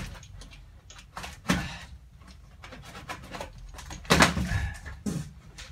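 A large cardboard box being handled while its packing tape is cut with a utility knife: a few short scrapes and knocks of cardboard, the loudest about four seconds in.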